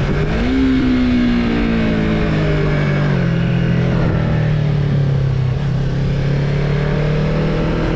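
Yamaha MT-03's parallel-twin engine running while riding. The pitch rises about half a second in, drops a little around two seconds in, then holds steady at cruising revs.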